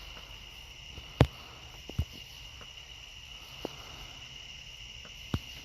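A faint steady high-pitched whine or chirr in the background, with a few short sharp clicks scattered through it, the clearest a little after one second in and at about two seconds.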